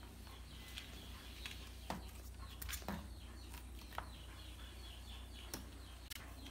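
A flat mop knocks and taps against the tile floor and furniture a handful of times as it is pushed about. Small birds chirp continually in the background over a low steady hum.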